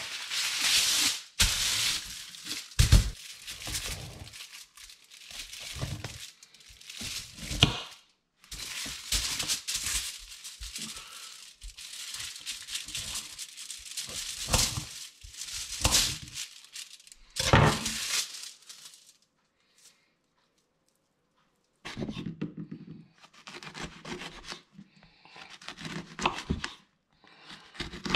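Tearing and crinkling of wrapping material such as kitchen foil or packaging, in loud irregular bursts. It stops for a few seconds about two-thirds of the way through, then quieter rustling and handling sounds resume.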